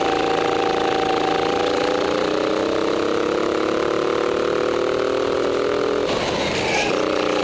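Go-kart engine running under power, its pitch rising slowly as the kart gathers speed along a straight, then broken by a short harsh, noisy patch about six seconds in as the kart turns into a corner.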